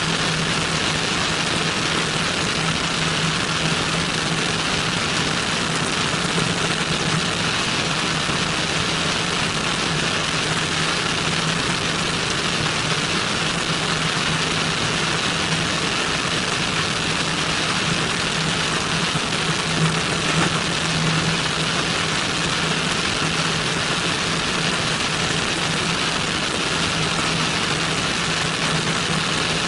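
Cessna 172N's four-cylinder Lycoming engine and propeller droning steadily in flight, heard from a camera outside the airframe with a strong rush of wind over it.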